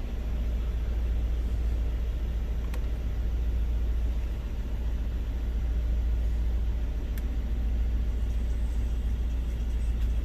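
Steady deep low rumble, with two faint clicks about three and seven seconds in.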